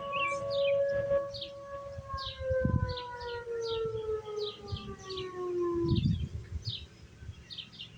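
Tornado warning siren winding down at the end of its test: a steady tone that begins falling in pitch about two seconds in and dies away about six seconds in. Birds chirp throughout.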